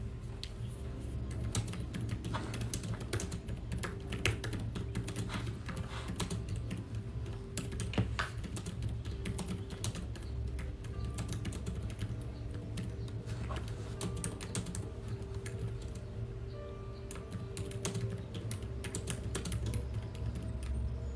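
Irregular light clicks and taps, much like typing, over soft background music and a low steady hum.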